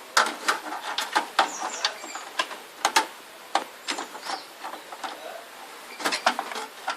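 Graphics card being handled and pushed into the motherboard's expansion slot: irregular light clicks, taps and knocks of hard parts, a dozen or so spread unevenly.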